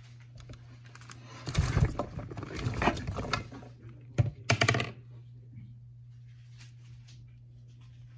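Vegetables, among them a half cabbage and corn on the cob, being put into a pot of chicken broth: a burst of knocks and rustling about a second and a half in, and another short clatter around four seconds in, over a steady low hum.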